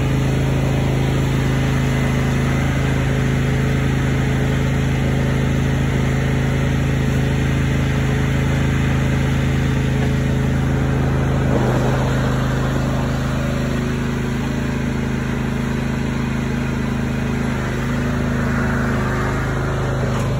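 An engine running steadily at a constant speed, with a slight change in its note about halfway through.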